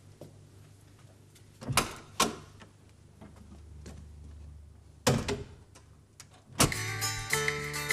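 A wooden door being opened and then shut: two knocks about two seconds in, and a louder bang about five seconds in as it closes. Music starts near the end.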